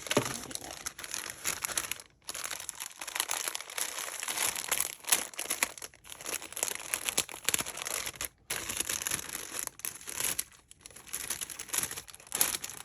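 Paper wrapping crinkling and crackling as a small parcel is unwrapped by hand, with short pauses between handfuls.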